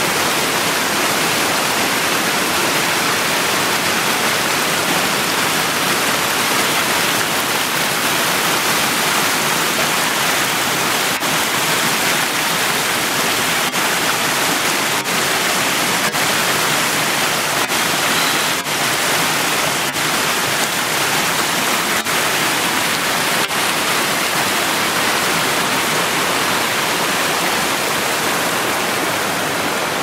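Small mountain stream rushing and splashing over rocks in little cascades, a loud, steady rush of water.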